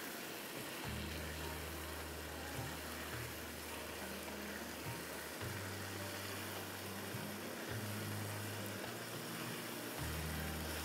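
Faint hiss of chicken masala frying in oil in a non-stick wok as it is stirred, under a low hum that comes and goes in long stretches.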